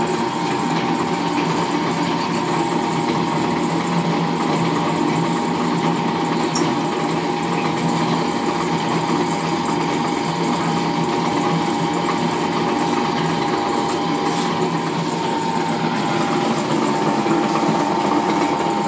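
Pillar drill press running, its bit drilling holes through a steel disc: a steady motor hum with a constant high tone over the noise of the cut.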